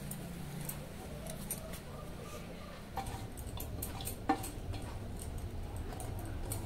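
Quiet kitchen handling: a steel bowl and spoon give a few light clinks and taps as a moist chopped banana-flower mixture is scraped out into a kadai. The sharpest tap comes a little past the middle.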